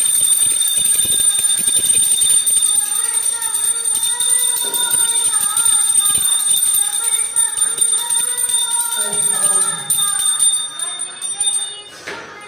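Music with a wavering melody over a puja hand bell ringing steadily; the sound drops to a lower level about a second before the end.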